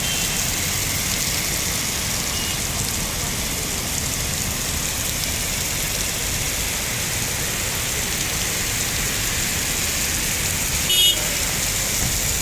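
Heavy rain falling steadily, a continuous even hiss. Near the end a brief high-pitched sound cuts through it.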